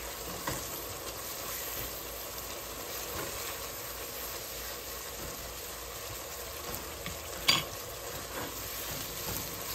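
Ground beef with onions and garlic sizzling as it browns in its own grease in a pot, stirred and scraped with a silicone spatula. A single sharper tap comes late on.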